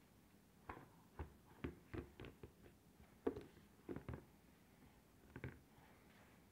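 A baby's hands slapping a plastic high-chair tray and knocking rubber balls about: about a dozen irregular smacks over five seconds, the loudest about halfway, then they stop.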